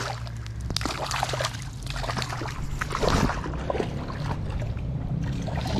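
River water splashing and sloshing in irregular bursts over a steady low rumble.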